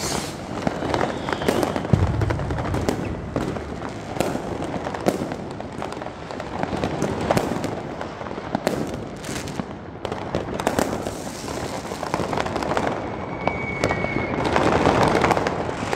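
Fireworks and firecrackers going off all around: irregular bangs and crackling throughout, with a brief whistle about thirteen seconds in and a denser burst of crackling near the end.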